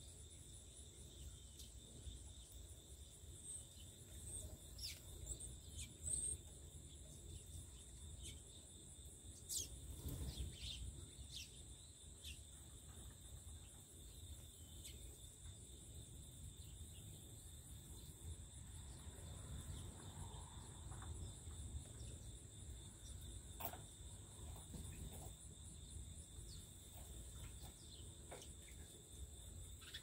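Faint steady high insect trill, typical of crickets, over a low background rumble, with scattered short bird chirps. A brief louder noise comes about ten seconds in.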